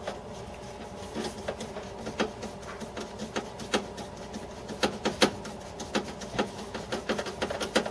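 Long screws being driven by hand with a 1/4-inch nut driver to fasten the refrigerator pantry drawer assembly: irregular clicks and scrapes of the driver and screws, over a steady low hum.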